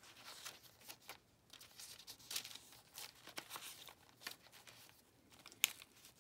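Paper pages of a handmade journal being turned and handled: faint, irregular paper rustling and soft clicks, with one sharper tick near the end.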